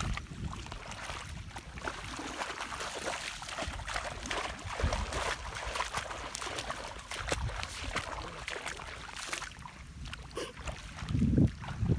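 Light splashing and trickling water with fine crackling. Wind buffets the microphone near the end.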